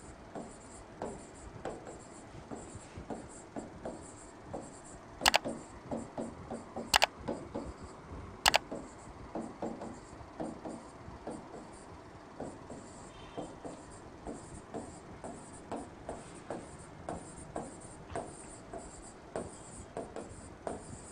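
Stylus writing numbers on an interactive touchscreen display: a run of light taps and scratches, two or three a second, with three louder, sharp clicks between about five and nine seconds in.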